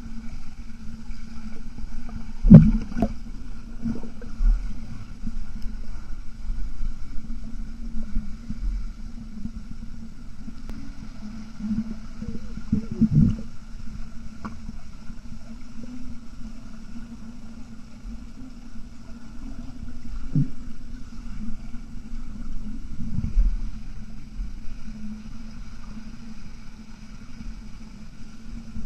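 Muffled underwater sound of a swimmer doing front crawl, heard through a submerged camera: a low, steady rumble of churning water with a few dull thumps from the strokes and kicks, the loudest about two and a half seconds in.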